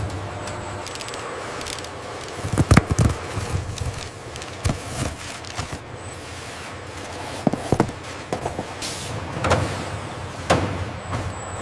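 Factory machinery running with a steady hum, broken by irregular mechanical clanks and knocks, the loudest a quick cluster about two and a half seconds in.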